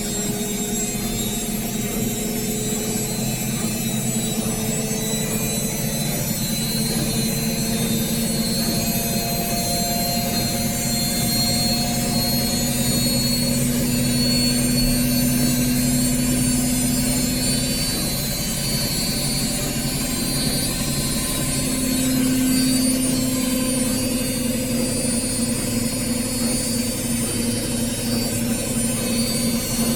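Indesit IWSC 51051 washing machine in its final spin, the drum spinning at high speed with a steady hum and whine that swells slightly twice.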